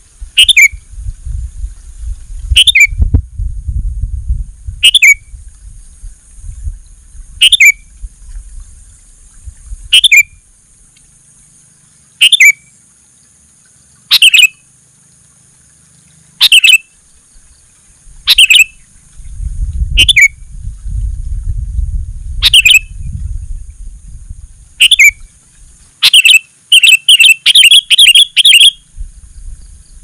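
Sooty-headed bulbul (kutilang) calling: a short, sharp call dropping in pitch, repeated about every two seconds, breaking into a quick run of rapid notes near the end. A low rumble comes and goes underneath.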